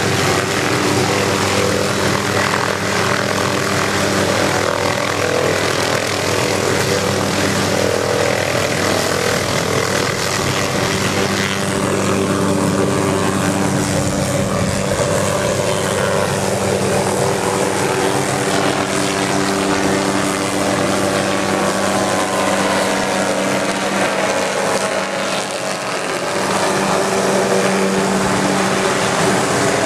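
Hughes 500 helicopter's turbine engine and rotor running loud and steady as it lifts off and climbs away overhead.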